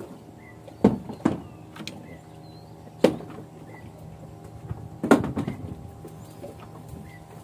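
Four sharp knocks over a steady low hum. The knocks fall at irregular gaps, the last and loudest about five seconds in, and a faint short chirp repeats every two seconds or so.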